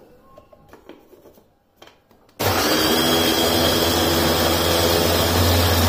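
A few faint plastic clicks as the lid and motor unit go onto a Black+Decker electric mini chopper. About two and a half seconds in, its motor starts suddenly and runs steadily with a low hum, blending fried onions and yogurt into a paste.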